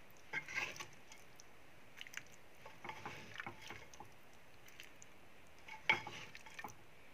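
Ladle scooping thick curry out of a cooking pot and emptying it into a steel serving bowl: soft wet squelches and light scrapes of the ladle, with a louder knock about six seconds in.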